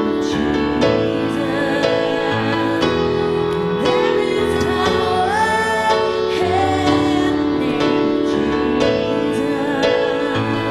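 Slow gospel worship song: a woman singing a melody over sustained keyboard chords and a bass line, with a slow steady beat.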